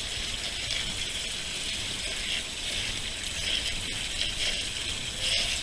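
Steady running and splashing of water in a koi pond.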